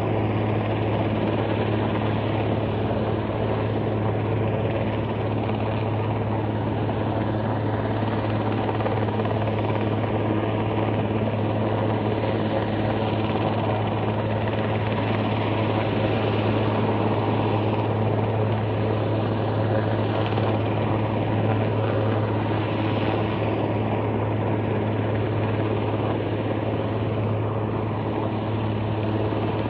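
Helicopter hovering, its rotor and engine making a steady drone with a strong low hum.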